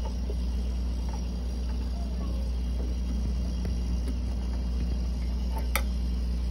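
Refrigerator compressor running with a steady low hum, its system holding about 5 psi on the low side after a refrigerant recharge. A short sharp click comes near the end.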